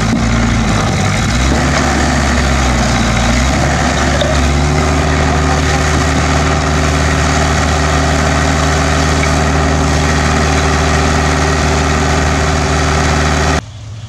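Heavy diesel engine running loud and close, its pitch shifting for the first few seconds and then holding a steady drone. The sound cuts off suddenly near the end.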